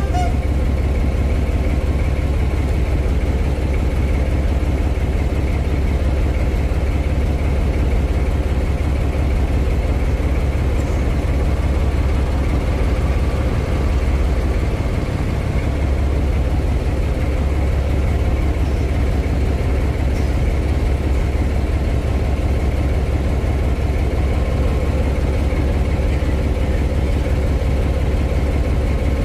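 Class 14 diesel-hydraulic locomotive's Paxman Ventura engine idling steadily close by, a deep, even hum.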